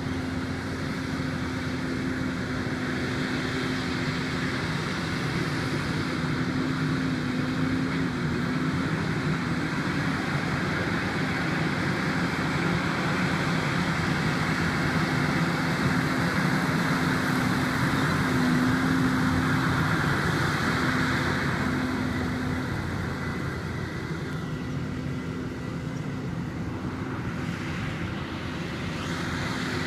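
Versatile 260 tractor engine running steadily under load while ploughing. It grows louder through the middle and eases off for a few seconds near the end.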